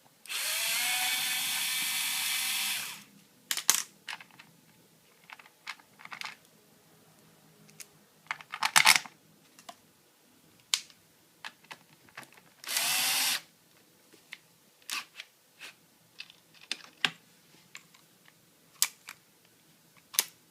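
Panasonic cordless electric screwdriver, converted to run on a single lithium cell, spinning up and running for about three seconds. A brief blip follows about nine seconds in, then a shorter run of about a second, with scattered clicks and knocks from the tool being handled.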